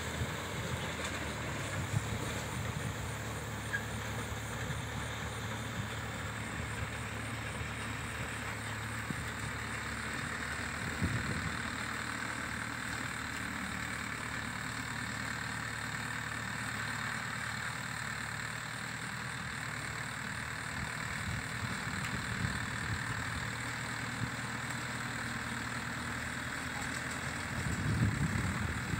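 Farm tractor's diesel engine running steadily under load while it drives a mini round baler baling rice straw, a constant low engine hum with machinery noise over it.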